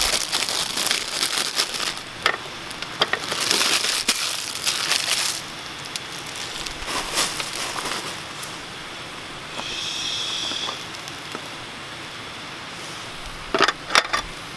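Plastic bag crinkling and rustling as bread rolls are taken out and set down on a wooden board, then quieter, with a few sharp knocks near the end.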